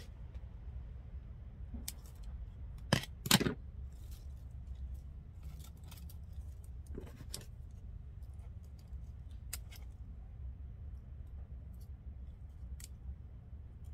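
Small scissors snipping thin vine stems: a handful of separate short snips, the loudest a quick double snip about three seconds in, over a low steady hum.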